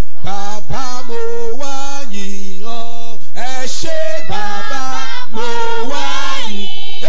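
A man singing a Yoruba praise song loudly into a microphone, in long held notes that slide from one pitch to the next, with short breaks between phrases.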